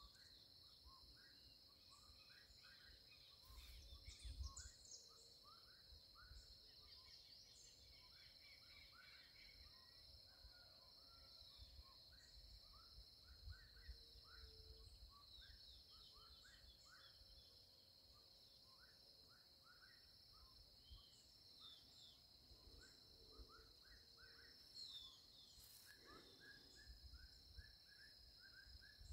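Faint countryside ambience: many small birds chirping and calling, short notes scattered throughout, over a steady high trill of insects.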